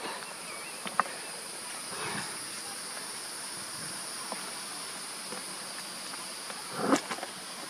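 Steady, high-pitched summer insect chorus in two pitched layers, with a few faint clicks and a brief louder noise near the end.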